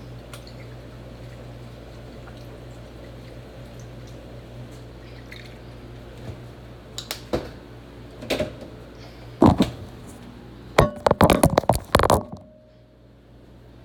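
Kitchen handling sounds: a few separate knocks, then a quick run of clinks and clatters near the end, as utensils and bottles are handled, over a steady low hum that stops near the end.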